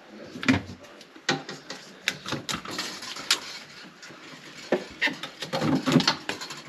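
Hands working on refrigerator parts: irregular sharp clicks and knocks with rustling between them.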